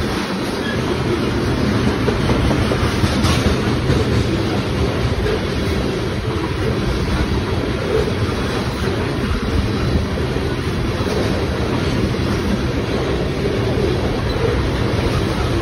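Tank cars of a freight train rolling past close by: a steady rumble of steel wheels on the rails, with one sharp click about three seconds in.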